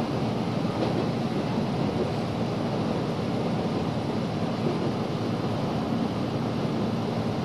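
Inside a 113-series electric train running at speed: a steady rumble of wheels on rail, with a faint steady hum under it.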